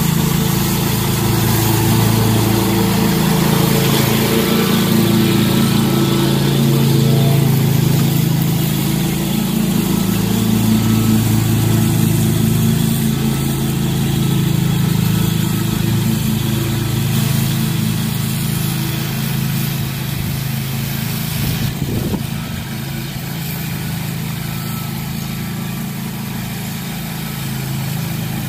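Walk-behind commercial lawn mower engine running steadily as it cuts thick grass, its pitch wavering slightly. It gets somewhat quieter over the last few seconds as the mower moves away.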